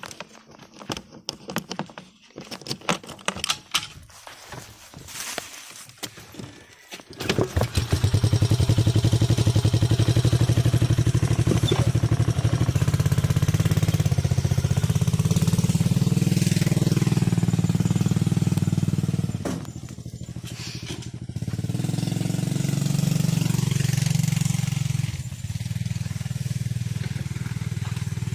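A four-wheeler's engine starts up about seven seconds in, after a few seconds of scattered clicks and knocks, and then runs loudly under throttle. It eases off briefly around twenty seconds in and picks up again.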